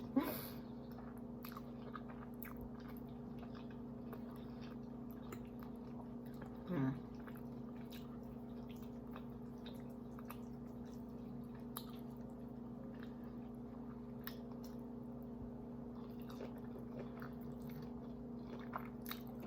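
Close-up chewing and wet mouth sounds of a person eating creamy pasta and salmon, with many small clicks and smacks over a steady background hum. One brief louder sound comes about seven seconds in.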